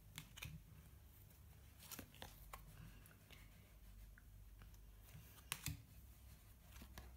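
Panini Adrenalyn XL trading cards being handled and flipped through, giving faint scattered clicks and slides of card on card, the loudest pair about five and a half seconds in.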